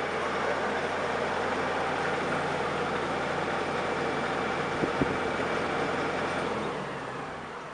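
A machine running steadily, with a couple of brief knocks about five seconds in; it dies down over the last second.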